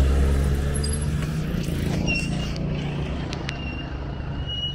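A motor vehicle's engine running close by with a low, steady hum that grows gradually quieter.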